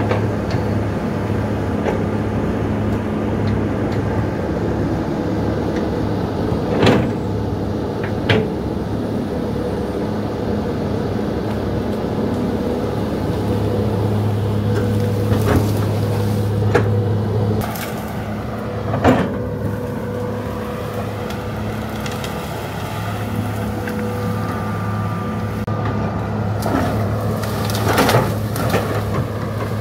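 Hydraulic excavator's diesel engine running steadily under working load, with a handful of sharp knocks from the machine at work. The engine note drops for a few seconds just past the middle, then comes back up.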